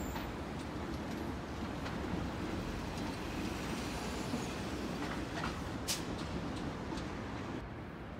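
Steady city street traffic noise of cars and trucks passing below, with a sharp click about six seconds in.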